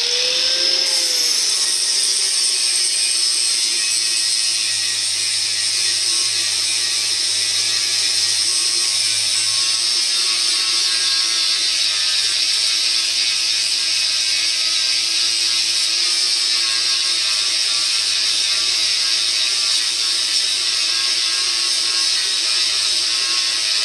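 Harbor Freight Warrior angle grinder with a 36-grit flap sanding disc grinding welds flush on a steel truck frame, running steadily under load. Its pitch rises and then settles in the first second as the disc bites into the metal.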